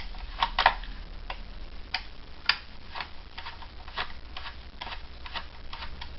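Light, sharp clicks, about two a second and uneven in strength, from a screwdriver working screws out of a plastic toy body.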